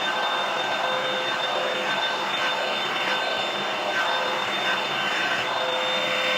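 Hair dryer running steadily: a rush of blown air with a constant motor whine.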